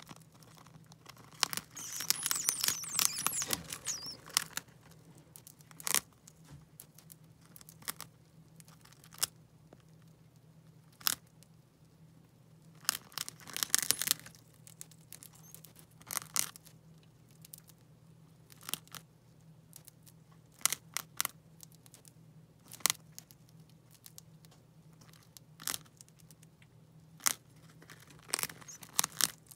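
Gerbils gnawing a crisp sugar-free wafer sheet: dry crunching and crackling nibbles, in dense runs near the start and about halfway through, with scattered single crunches between.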